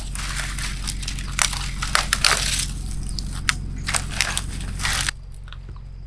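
Dry twigs and brushwood snapping and crackling as they are broken off and gathered by hand, in a dense run of sharp snaps that stops abruptly about five seconds in.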